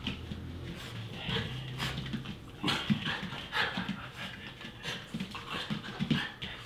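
Small Mameshiba dogs panting excitedly, in short irregular breathy bursts.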